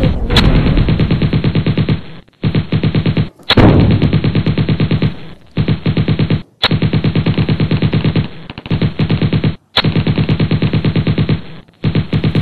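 Fireworks firing in fast rattling strings of bangs. The strings break off in several short dropouts, and a louder crack comes every few seconds.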